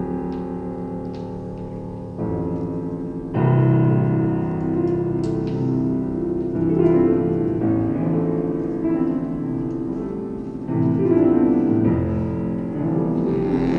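Piano playing slow, held chords, each left to ring for one to four seconds before the next is struck.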